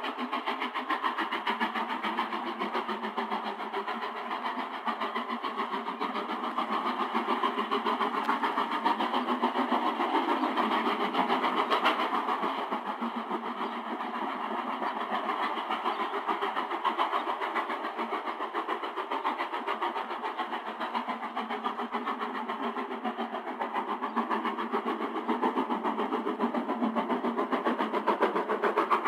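Steam locomotive working steadily, its exhaust a fast, continuous beat that grows louder twice, heard on an old narrow-band 1950s tape recording.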